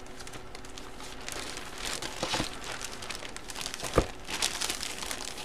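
A clear plastic bag holding a jersey crinkles and rustles as it is handled. There is a sharp tap about four seconds in.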